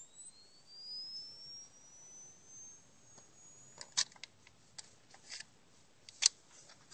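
Disposable camera's flash circuit charging its flash capacitor: a thin, high-pitched whine rising steadily in pitch for about three and a half seconds, the sign that the capacitor is building up a charge that can give a shock. A few sharp clicks follow in the second half.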